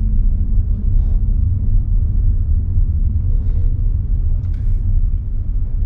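Steady low rumble of a car on the move, heard from inside the cabin: road and engine noise.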